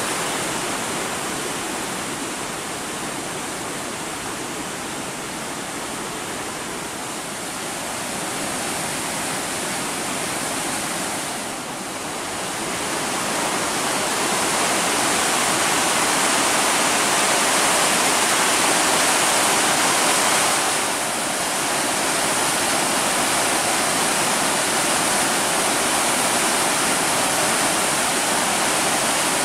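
Floodwater rushing through granite boulders, a creek swollen by heavy rain, making a steady rush of rapids and whitewater. It grows louder about halfway through, with two brief dips.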